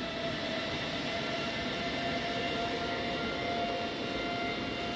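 Steady machinery hum with a constant whine above it, unchanging throughout.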